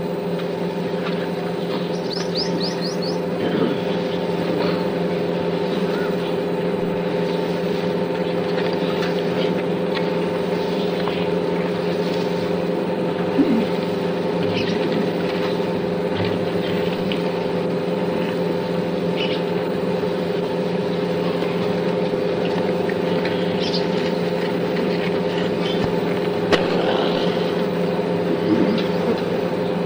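Steady machine hum with several fixed tones under a noisy background, with a short run of faint high chirps about two seconds in and a few faint brief sounds.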